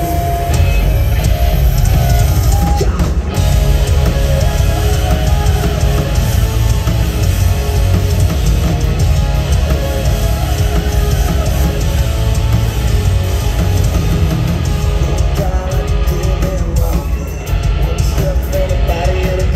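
Rock band playing loud live: electric guitars, bass and drum kit, heard from within the concert crowd.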